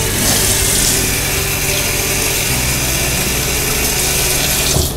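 Kitchen faucet running, its stream splashing onto a cucumber in a metal colander in the sink. The water comes on suddenly and shuts off just before the end.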